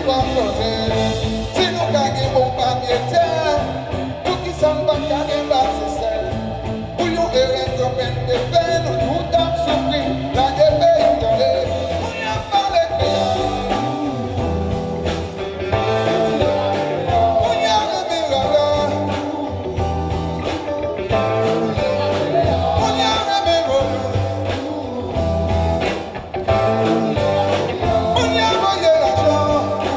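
Live band music with a strong bass and a gliding melody line, possibly carrying a vocal.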